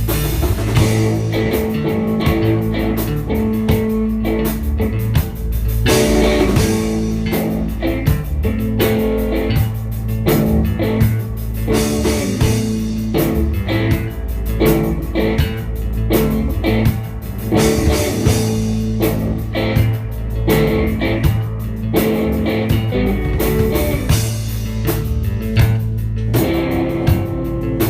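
Background music: blues-rock with guitar and a drum kit keeping a steady beat.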